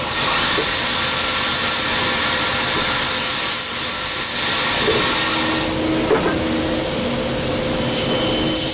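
CNC lathe machining a part: a steady hiss of coolant spraying over the tooling, with a steady machine hum beneath. A low tone joins about five seconds in, and there is a small click near six seconds.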